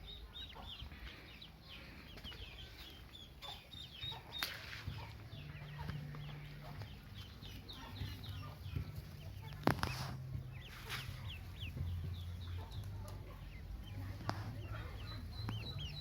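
Newly hatched Pekin ducklings peeping: many short, high chirps in quick succession, over a low steady hum, with a few sharp clicks.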